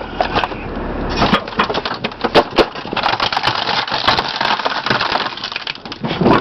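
A microwave oven being crushed in a garbage truck's compactor: a rapid, irregular run of cracks, snaps and crunches as its casing and parts give way, over a low rumble that drops away about a second in.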